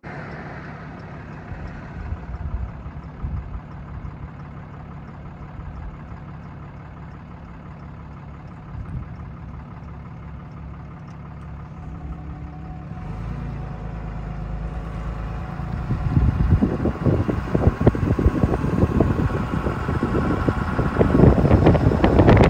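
Car driving, its engine and road noise heard steadily from inside. About sixteen seconds in it grows louder and rougher, with an uneven rumble.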